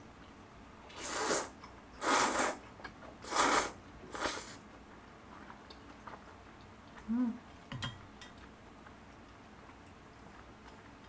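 Udon noodles slurped off chopsticks: four short slurps about a second apart, followed a few seconds later by a brief low hum from the eater and a light click of chopsticks against a steel bowl.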